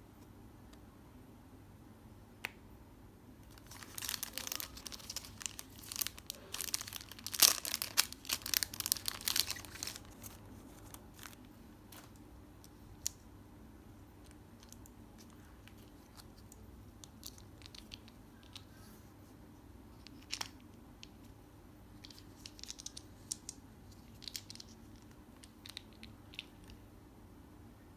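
Packaging being torn open and crinkled for about six seconds, a dense crackling rustle, followed by scattered light clicks and taps of handling.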